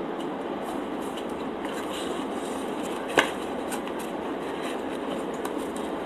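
Faint chewing and mouth clicks over a steady background hiss, with one sharp click a little past halfway.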